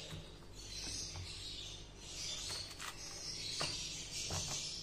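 Kitchen knife scraping and cutting the soft seedy core out of pieces of bottle gourd, in several short scraping strokes with a few light clicks.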